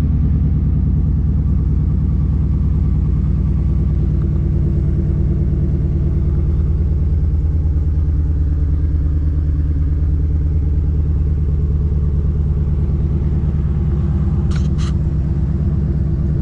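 Pontiac Firebird Trans Am engine idling steadily just after a cold start, a loud, even, deep rumble. Two short clicks near the end.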